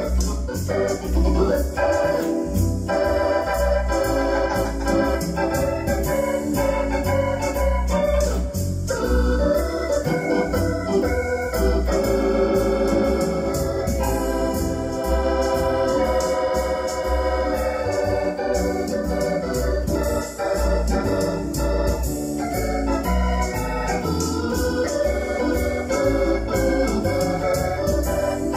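Electronic keyboard played with both hands on an organ sound: a held melody over chords, with bass notes pulsing steadily underneath.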